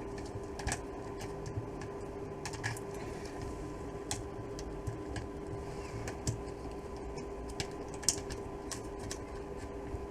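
Irregular light clicks and taps of a cover being handled and pushed at, not yet clipping into place, over a steady low hum.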